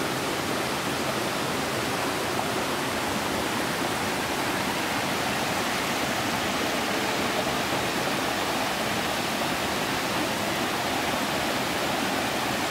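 Shallow rocky creek tumbling over boulders in small cascades: a steady rush of running water.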